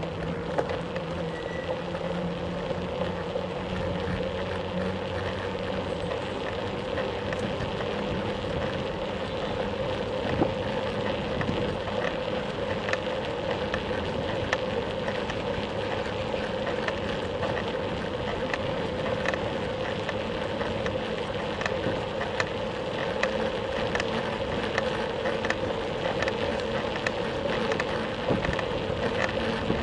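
Bicycle rolling over paving tiles, heard from a camera on the bike: a steady rush of tyre noise with frequent small ticks and rattles.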